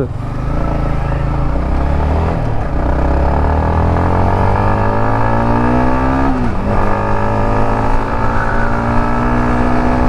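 Motorcycle engine pulling away from a stop, its pitch rising steadily as it accelerates. About six and a half seconds in it drops sharply at a gear change, then runs steady at cruising speed, with wind rush on the microphone.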